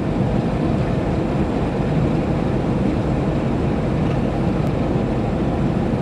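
Steady low rumble of a river vessel's engine, heard from on deck.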